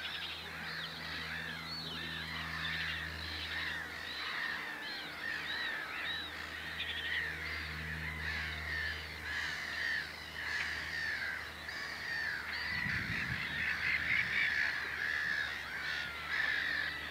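Black-headed gull colony calling: a continuous chorus of many overlapping harsh, short calls.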